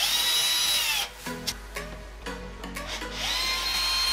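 Cordless drill running in two short bursts, its chuck gripping an angle grinder's spindle nut and turning it. Each burst is a high motor whine that winds up, holds for about a second and winds down: one at the start, the second starting about three seconds in.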